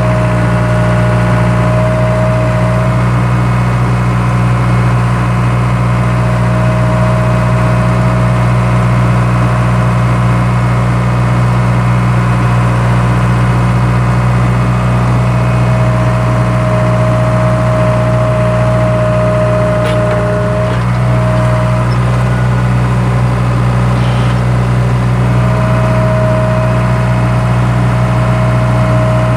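Skid steer engine running steadily, with a higher whine that comes and goes several times.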